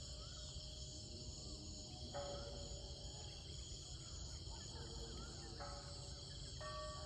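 Soft background music with held chords changing every few seconds, over a steady high chirring of crickets.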